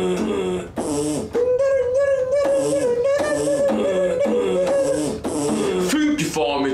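Beatboxed beat: a steady rhythm of mouth-made kick thumps and hissing hi-hat sounds. From about a second and a half in, a held, slightly wavering tone is laid over it.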